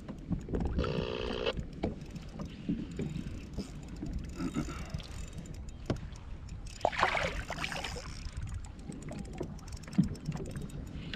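Water sloshing against a plastic fishing kayak's hull, with scattered knocks and splashes from handling on board. A brief single-pitch tone sounds about a second in.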